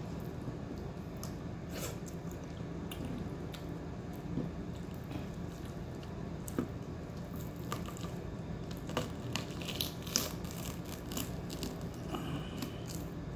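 A person eating close to the microphone: wet, squishy chewing and mouth sounds with many small irregular clicks, over a steady low hum.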